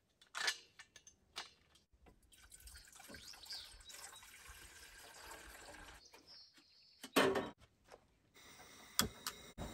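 Water poured from a plastic pitcher into a metal cooking pot, running steadily for about four seconds. Then comes a loud clunk as the pot goes onto the camp stove's grate, followed by a few sharp clicks near the end.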